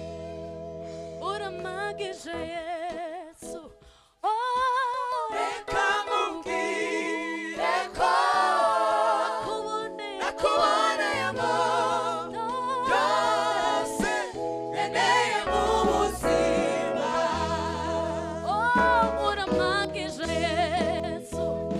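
Gospel choir singing with a female lead vocalist over sustained chords and bass. The music drops away briefly about four seconds in before the voices come back in.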